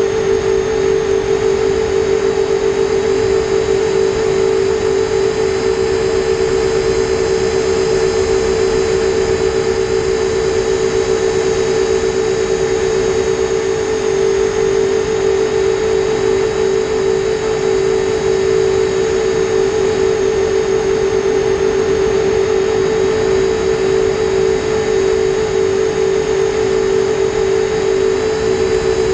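Motors and propellers of a 7-inch FPV quadcopter running at a steady cruising pitch, a constant whine over a hiss of air noise, recorded close on the quad's onboard GoPro Session.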